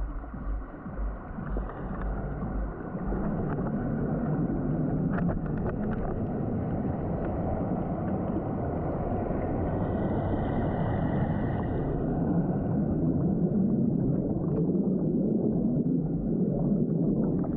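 Muffled rush and gurgle of river water heard through a camera held underwater, with a few light clicks and knocks. It gets louder after about three seconds as bubbles stream past.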